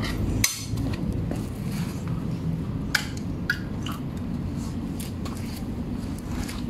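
A small metal can of wet cat food knocked against a plastic tray a few sharp times to tip the food out, with a sharp click about half a second in. A steady low rumble runs underneath.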